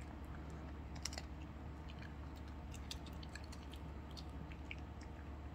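A Shih Tzu chewing small dry dog treats: a quick, irregular run of crisp crunching clicks over a faint steady low hum.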